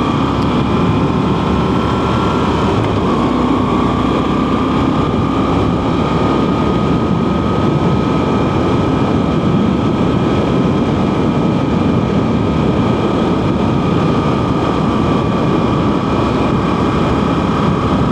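Motorcycle being ridden at speed: the engine runs steadily under a constant rush of wind and road noise, its note rising a little about three seconds in and then holding.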